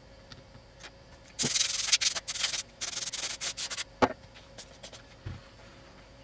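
A run of quick rubbing strokes lasting about two and a half seconds, followed by a sharp knock about four seconds in and a soft thump a little over a second later.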